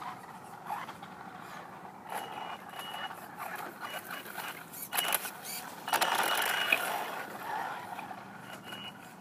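Traxxas Slash RC truck's electric motor whining at speed with tyre noise, a sharp knock about five seconds in, then a louder rush of motor and tyre noise for about a second before it fades, as the truck is driven off a ramp.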